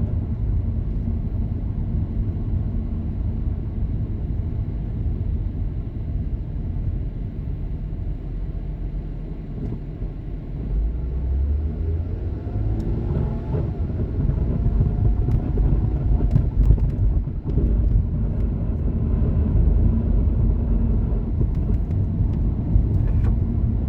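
2006 Mazda6 wagon driving, a steady low rumble with a grinding, scraping noise from the front of the car, with a few brief wavering tones about halfway through and some knocks later. The owner hears this grinding while the car is cold, has ruled out the wheel bearings, and finds it goes away once the car warms up.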